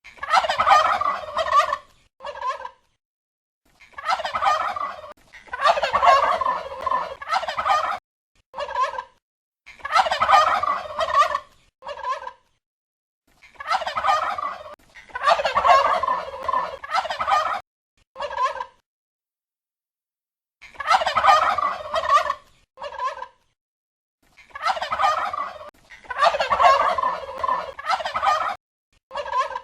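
Male domestic turkey gobbling again and again. Each gobble lasts a second or two and is usually followed by a short extra call, with gaps of dead silence between.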